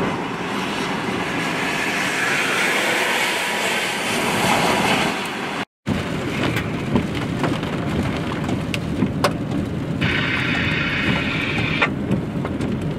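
Wind and rain rushing with a semi-truck passing on the wet highway, its tyres throwing spray. About halfway it breaks off, and steady road noise inside a moving car follows, with scattered sharp taps of raindrops on the windshield.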